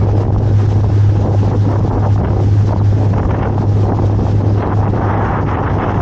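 Sightseeing cruise boat's engine running with a steady low hum, under heavy wind buffeting on the microphone.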